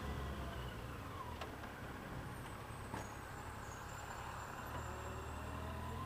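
Yamaha FJR1300's inline-four engine slowing, its pitch falling in the first second or so, then running softly at low speed, with its deeper note returning near the end.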